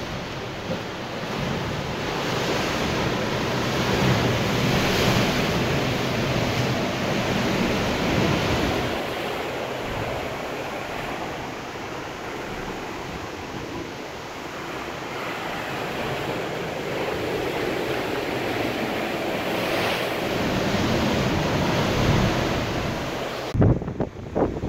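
Ocean surf washing and breaking against volcanic rock, swelling and easing in waves, with wind on the microphone. Near the end a few gusts thump the microphone.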